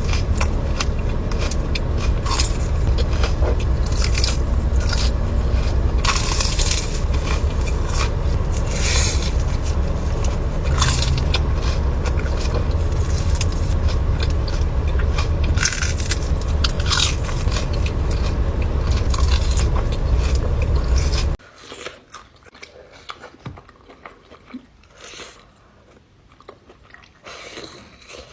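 Close-up eating sounds: crunchy bites, chewing and scraping over a steady low rumble. About 21 seconds in, the rumble cuts off abruptly and quieter chewing and small clicks follow.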